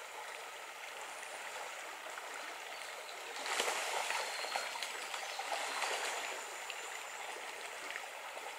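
Shallow river riffles rushing over rocks: a steady hiss of running water that grows a little louder about three and a half seconds in.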